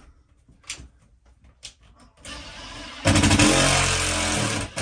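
Cordless drill/driver running for about a second and a half, driving a screw into the ceiling fan housing's flange, after a few light clicks of handling.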